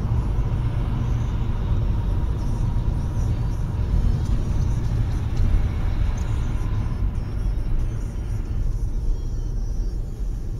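Steady low rumble of engine and tyre noise heard from inside a car driving along a snowy highway.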